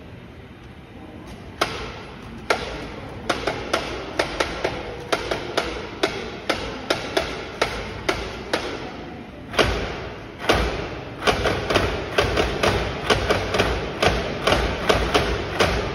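Wooden lion heads and wooden works of a shishimai (lion dance) clock clacking: a run of sharp wooden knocks that begins about a second and a half in, sparse at first, then quickens to several a second.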